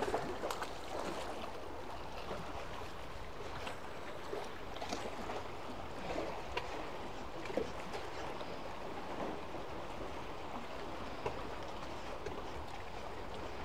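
Sea water lapping and sloshing against concrete tetrapods, a steady low wash with a few faint small clicks scattered through it.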